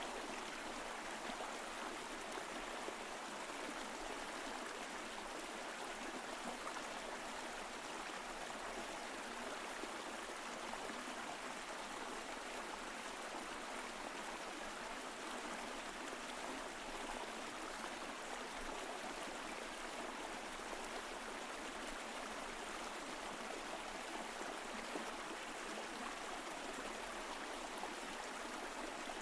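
Mountain stream flowing steadily over rocks, a continuous rushing and gurgling of water.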